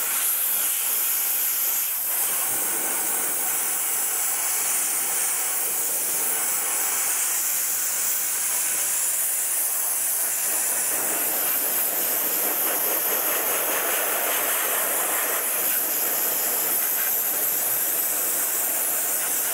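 Dry ice blasting gun firing a continuous jet of compressed air and dry ice at an alloy wheel, a loud steady hiss. It grows a little fuller about eleven seconds in.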